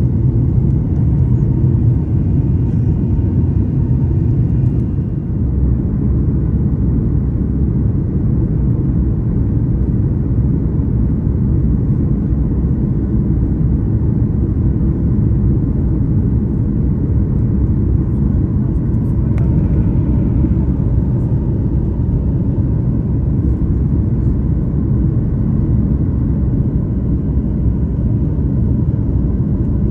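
Steady low rumble inside a jet airliner's cabin on final approach and landing: engine and airflow noise, with a brief sharper sound about two-thirds of the way through.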